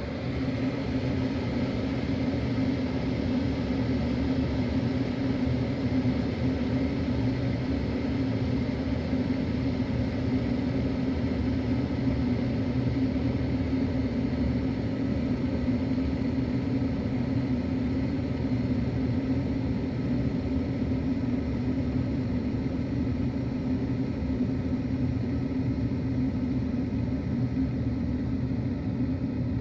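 A machine running with a steady low hum and rumble, stepping up in level right at the start and then holding even.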